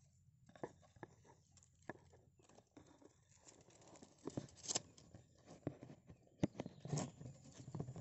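Bittern chicks in their nest: scattered short clicks and rustles, busier and louder from about halfway in.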